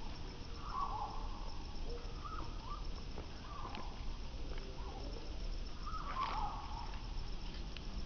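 Outdoor background: a steady low rumble with short warbling calls now and then, the loudest about a second in and again near six seconds.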